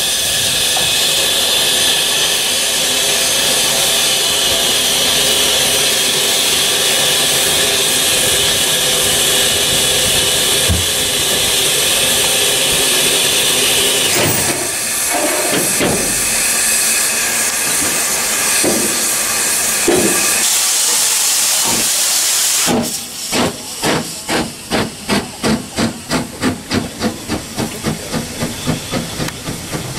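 Ex-military 0-6-0 saddle tank steam locomotive with steam blowing off from the top ahead of the cab: a loud, steady hiss. About 23 seconds in, the locomotive starts away with a regular chuff from the chimney, two to three beats a second and quickening.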